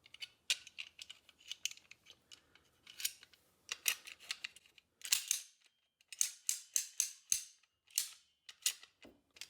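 Small metal and plastic parts of a TOMY toy-capsule coin mech clicking and clattering as it is handled, a long run of short, sharp clicks with a brief lull about halfway through.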